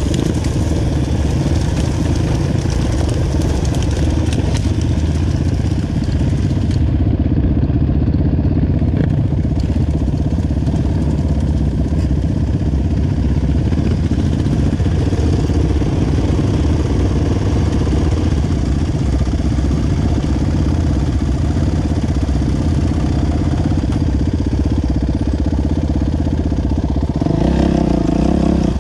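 Dirt bike engines running at low revs in a group of trail motorcycles, the camera rider's own bike loudest, with a brief swell near the end.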